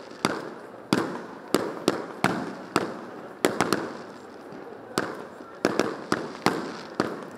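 Fireworks display: aerial shells bursting in quick succession, about fifteen sharp bangs roughly every half second, each trailing off in an echo.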